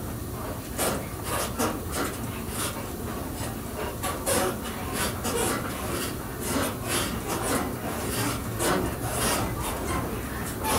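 Train running along the track, heard from inside the cab: a steady low rumble with irregular short scraping, knocking noises, one or two a second, starting about a second in.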